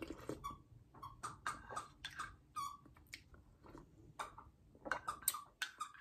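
Repeated short slurps and lip-sucking noises of a person sipping hot cocoa off a spoon.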